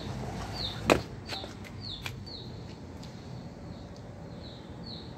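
A small bird chirping over and over, a short high note falling in pitch about twice a second. A single sharp knock about a second in comes as a boot steps down from the truck cab.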